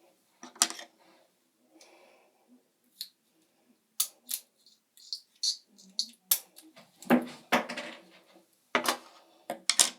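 Portable charger's plastic casing and small internal parts clicking and clattering as they are handled and pulled apart, in a dozen or so irregular sharp knocks, busiest in the second half.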